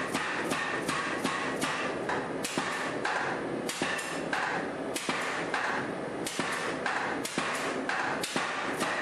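A 100 lb compressed-air power hammer's ram striking hot round bar stock on the anvil, upsetting it. Blows come about three a second, slow to spaced single blows with a short pause about five seconds in, then pick up again to about two a second.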